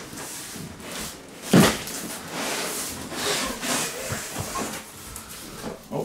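Cardboard box of a Tesla Wall Connector being opened by hand: the lid and flaps scrape and rustle, with one loud knock about one and a half seconds in.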